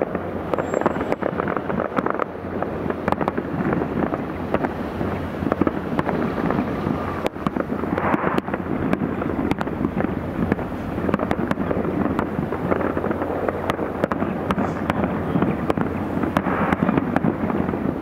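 Aerial fireworks display: a dense, continuous barrage of shell bursts and crackling, with many sharp cracks coming in quick succession.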